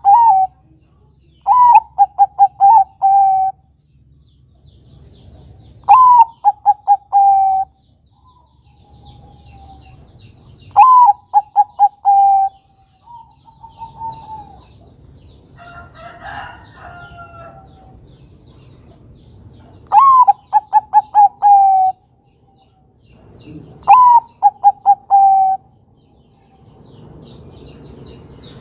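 Bangkok-type zebra dove (perkutut) singing its cooing song: five staccato phrases a few seconds apart, each a higher opening note followed by a quick run of short coos.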